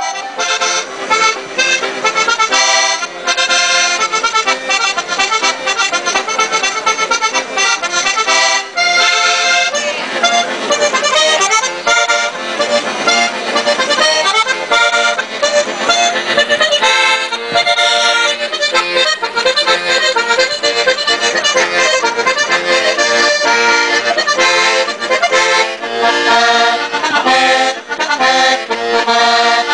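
Diatonic button accordion (organetto) playing a lively tune of quick, constantly changing notes.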